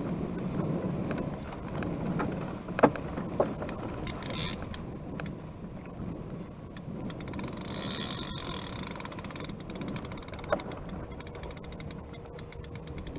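Water washing against a wooden rowboat's hull. A few sharp knocks on the boat stand out: two about three seconds in and one more near ten seconds.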